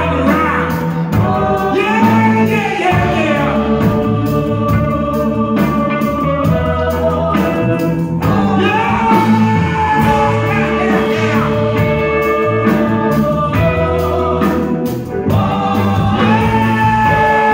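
Live band playing, with several singers singing together over drums and bass.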